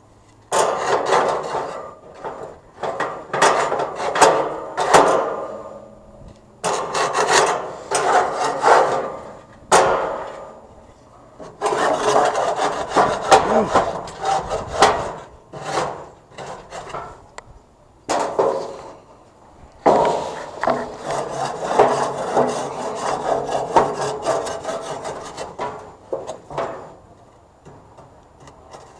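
Barbecue grill being scraped clean: fast, repeated rasping strokes in four bouts of several seconds each, with short pauses between.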